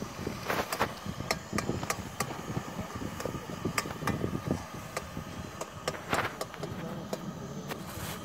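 Irregular light clicks and knocks, several a second at times, over a steady background rumble.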